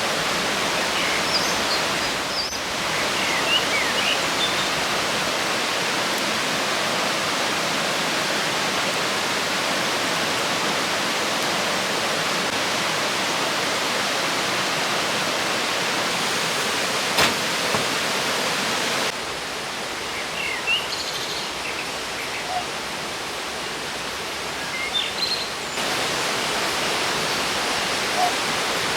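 Steady rush of a river running fast over rocks, with a few short bird chirps now and then. The rush drops a little in level for several seconds past the middle.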